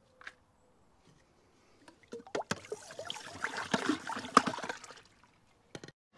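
Water splashing and sloshing as a gloved hand reaches into a pool skimmer full of green water, with a run of sharp clicks and knocks, from about two seconds in for about three seconds.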